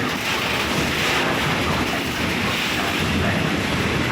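A train passing close by on the tracks: a loud, steady rushing of wheels on rails.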